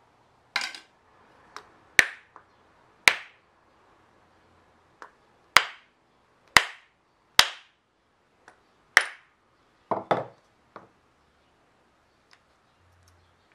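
Wooden mallet striking a scrap wood block held against the wooden body of a Japanese chamfer plane, knocking the blade loose: about a dozen sharp wooden knocks at uneven intervals, the last a quick double knock.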